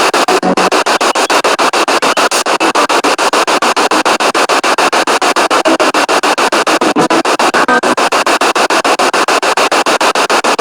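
Spirit box sweeping through radio frequencies: loud static hiss chopped into rapid, even pulses many times a second.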